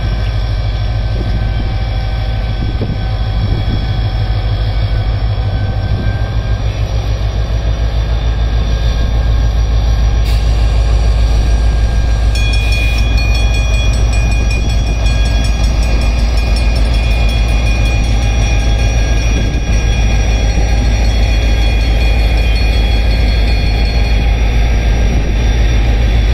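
HGMU-30 diesel-electric locomotive and its passenger train pulling out, with a loud, steady engine rumble and rolling wheel noise that grow slightly louder. High steady squealing tones join about halfway through.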